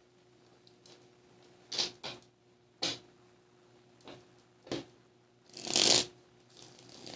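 A deck of tarot cards handled and shuffled by hand: several short, separate card clicks and flicks, then a longer, louder rush of shuffling about six seconds in.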